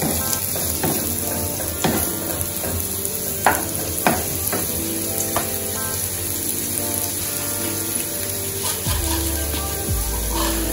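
Onions and scallion sizzling steadily in hot oil in a nonstick frying pan, with a wooden spoon stirring and knocking against the pan a few times in the first few seconds.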